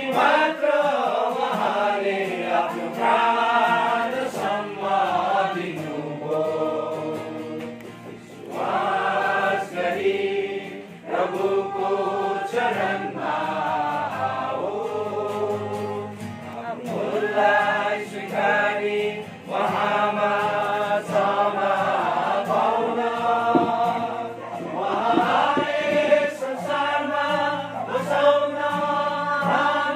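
A congregation of men and women singing a hymn together at a requiem mass. The sung phrases last several seconds each, with short breaks between them.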